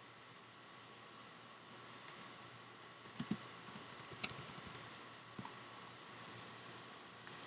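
Computer keyboard keys being typed in faint, irregular clicks, most of them in a run between about three and five and a half seconds in.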